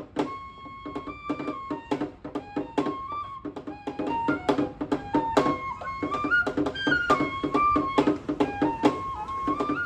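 Background music: a melody of held notes stepping up and down over a steady run of struck notes.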